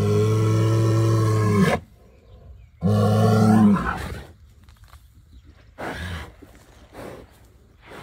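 An upset bull bellowing twice: a long, deep, loud bellow of about two seconds, then after a short pause a shorter second bellow of about a second.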